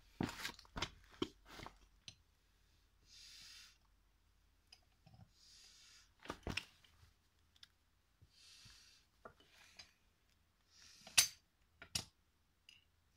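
Small metal parts clicking and clinking as they are handled, a quick run of clicks at the start and single sharp clicks later, the loudest near the end. Soft hissing noises of under a second return about every two and a half seconds.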